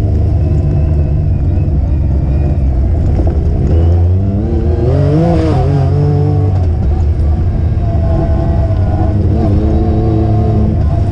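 Off-road vehicle's engine heard from on board while riding a dirt trail, with a heavy low rumble; it revs up about halfway through, eases off, and picks up again near the end.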